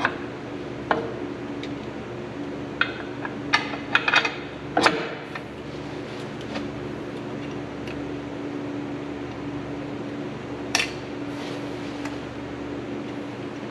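Metal clinks and clanks of parts being handled at a truck's front-axle drum brake as the brake shoes are fitted, a flurry of them a few seconds in and one more near the end, over a steady low hum.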